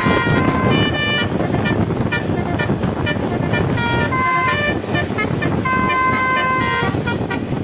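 Putra Maulana bus's telolet horn playing a basuri tune: several runs of stepped musical horn notes that change pitch note by note, with short gaps between runs, over the steady noise of the bus engine and road.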